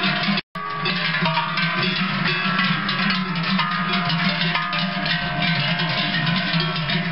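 Large cowbells on cows' neck straps clanging continuously, several at once. There is a brief cut-out in the sound about half a second in.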